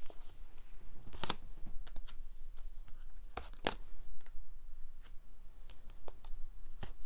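Tarot cards being drawn from the deck and laid down on a cloth-covered table: a scattering of short card snaps and slides, the sharpest a little over three and a half seconds in.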